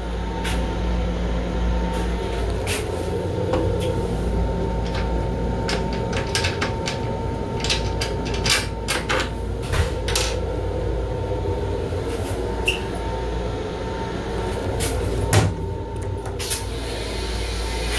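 Inside the small restroom of a Long Island Rail Road M7 electric railcar under way: a steady low rumble with many sharp clicks and rattles. A faint steady whine runs through it and stops about 13 seconds in.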